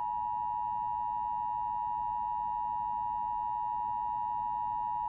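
NOAA Weather Radio 1050 Hz warning alarm tone: one steady, unbroken single-pitched tone, the signal that a warning broadcast, here a tornado warning, is about to follow.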